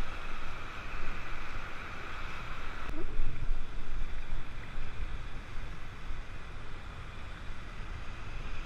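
River rapids rushing around an inflatable raft, with wind buffeting the camera microphone as a low rumble. The hiss of the white water eases a little about three seconds in.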